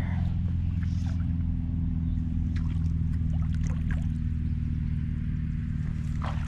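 A steady low mechanical hum, like a motor running, with a few faint small clicks over it.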